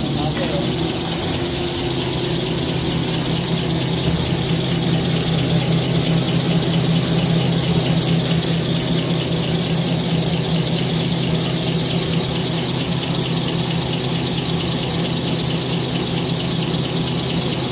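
Small toilet-paper rewinding machine running: its whine rises as it speeds up in the first second, then it runs steady with a fast, even mechanical beat under a high whine.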